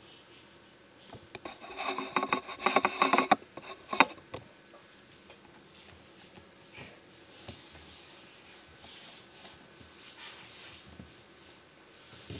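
Camera being picked up and moved: about two seconds of rattling, rubbing handling noise, then a single sharp knock about four seconds in, followed by faint rustling.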